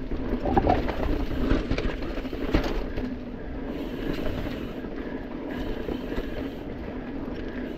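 Mountain bike riding down a dirt singletrack: the tyres rumble over dirt and roots while the chain and frame rattle on the bumps, with sharper clatters about half a second in and again about two and a half seconds in.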